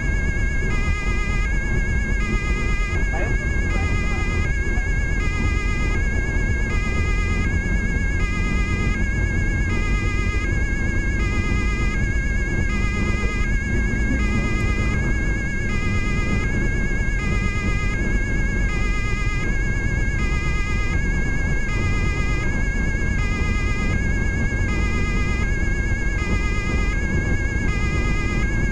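German police two-tone siren (Martinshorn) sounding continuously, its high and low notes alternating steadily, each held about half a second. Heard from inside the car's cabin over steady engine and tyre noise at Autobahn speed.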